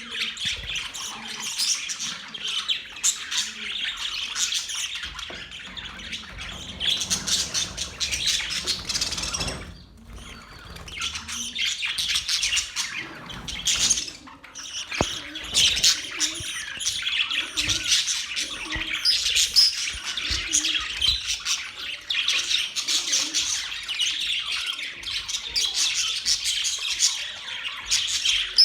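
Budgerigars chirping and warbling in a dense, continuous chatter, with brief lulls about ten and fourteen seconds in.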